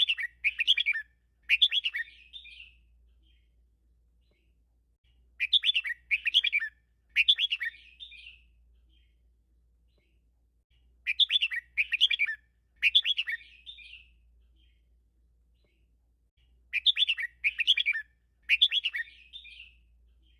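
Red-whiskered bulbul singing: a bright warbled phrase made of three quick bursts, repeated four times, about every five and a half seconds.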